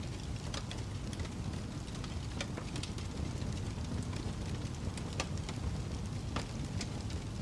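Crackling wood fire: a steady low rumble of burning logs with irregular sharp pops and snaps scattered through it.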